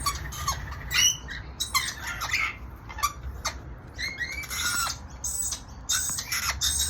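A group of parrots squawking and chirping, with many short overlapping calls, some sliding quickly down in pitch.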